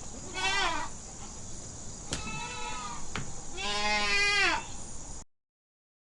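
Goat bleating three times in wavering calls, the last the longest; the sound cuts off suddenly about five seconds in.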